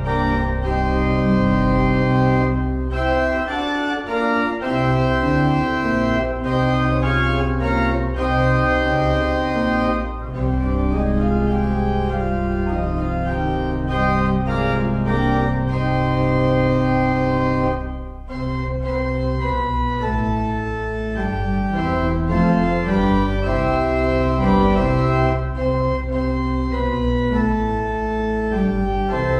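Church organ playing sustained full chords over long held low pedal notes, with short breaks between phrases about four and eighteen seconds in.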